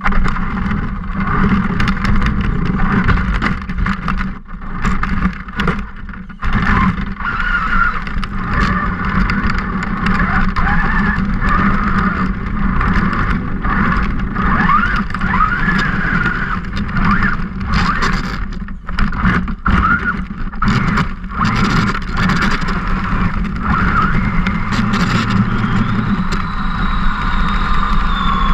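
Radio-controlled truck's motor and drivetrain running hard, its whine rising and falling in pitch with the throttle, mixed with rattling, jolts and water splashing as it drives through a shallow creek.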